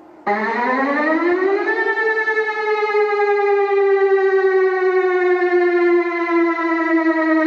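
Civil defense warning siren starting abruptly and winding up in pitch for about a second and a half, then holding a long, slowly falling wail.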